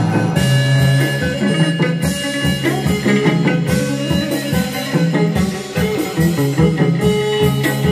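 Chầu văn (hát văn) ritual music: plucked lute notes over drums and wooden clappers keeping a steady, even beat.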